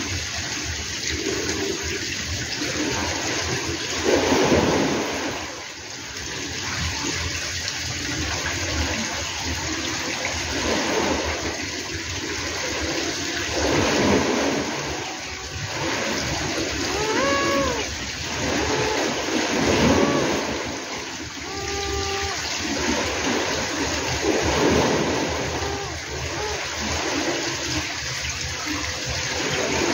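Outdoor rushing noise that swells and eases every few seconds. A few short pitched calls that bend up and down come through around the middle.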